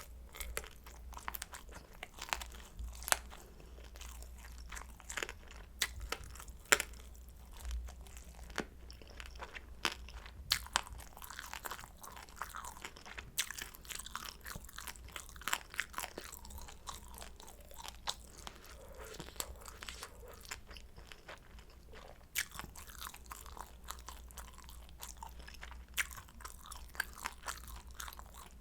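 Close-miked chewing of crisp fried kimchi dumplings: irregular crunchy bites and wet chewing clicks, with no speech, over a faint low hum.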